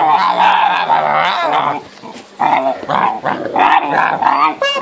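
Great Dane puppies growling in rough play, close up and loud, in bursts with a short break about two seconds in.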